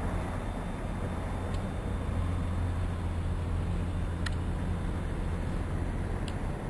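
Diesel freight locomotive pulling away with a short string of gondola cars: a low, steady engine drone.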